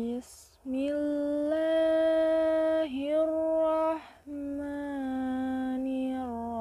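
A woman's voice chanting Quranic recitation (tilawah) in long, drawn-out melodic notes. There is a quick breath just after the start and short breaks about three and four seconds in.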